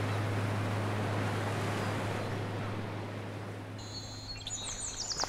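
A steady rushing outdoor noise with a low hum beneath it, fading over the first few seconds. Then from about four seconds in, small birds give a quick run of high chirps.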